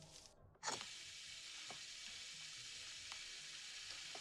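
A faint, steady hiss with a few light ticks, starting abruptly with a click about a second in.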